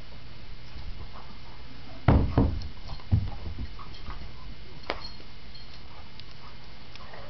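Two dogs wrestling in play: three heavy thumps of bodies knocking against the floor or furniture about two seconds in, then a single sharp click a couple of seconds later, over a steady low room hum.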